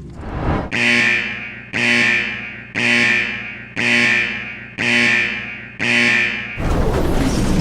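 A ringing, alarm-like tone sounded six times, about once a second, each starting sharply and fading away. A loud noisy rumble cuts in near the end.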